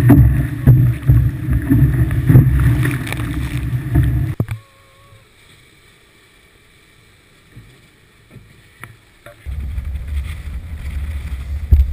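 Wind buffeting the microphone and water rushing and splashing against the hulls of a 50-foot catamaran sailing fast, with scattered knocks of spray. About four and a half seconds in it drops to a faint level for about five seconds, then the loud rushing of water and wind returns.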